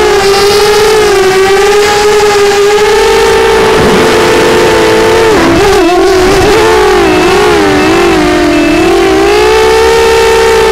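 Brushless motors and 6-inch props of a small homemade FPV quadcopter whining, heard on its onboard camera. The pitch holds fairly steady, drops about five seconds in, then wavers up and down with the throttle before rising again near the end. A faint short beep repeats from about seven seconds on.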